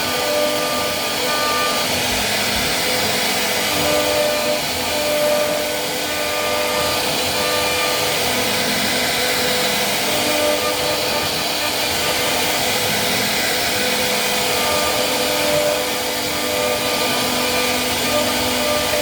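CNC wood router carving wood: a steady whine and rush of the spindle, with its tones shifting slightly as the cut goes on.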